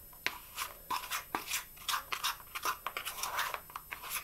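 Spoon scraping and stirring thick chocolate chip cookie dough in a plastic Tupperware Breakfast Maker: quick, irregular scrapes with light clicks against the container.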